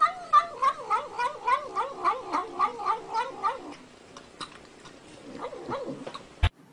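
A cat making the rapid, wavering "nom nom nom" calls of a cat eating, about three a second for some three and a half seconds, then fainter. A single sharp click near the end.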